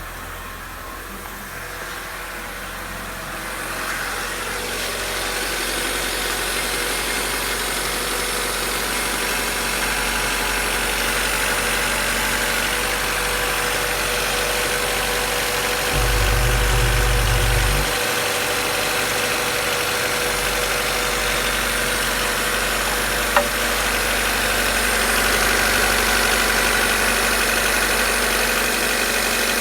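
Honda D14A5 1.4-litre four-cylinder petrol engine idling steadily, with a brief louder low rumble about two-thirds of the way through.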